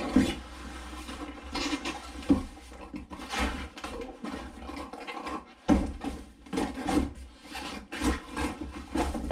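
Cardboard box and brown paper wrapping rustling and scraping as a BMX bike is lifted out of its packaging, with irregular knocks and bumps. The sharpest knocks come just after the start and about six seconds in.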